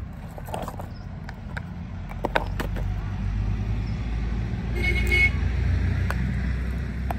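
A motor vehicle passing close by: its engine rumble builds from about two seconds in, with a short horn toot about five seconds in. A few sharp clicks sound in the first three seconds.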